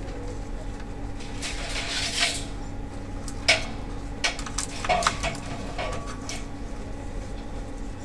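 Scattered clicks, taps and a short scrape of small plastic and metal parts and wire connectors being handled inside an opened projector, over a steady background hum.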